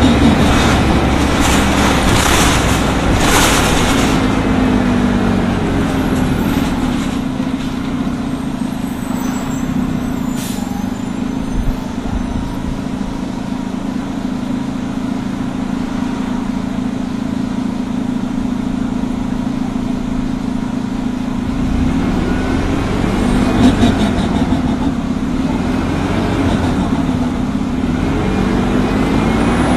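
Orion V CNG transit bus with a Detroit Diesel Series 50G natural-gas engine and an Allison B-400R automatic transmission. There are bursts of air hiss in the first few seconds, then the engine runs at a steady low tone. From about 22 seconds in, the engine pitch rises and falls repeatedly as the bus accelerates and the transmission shifts up through the gears.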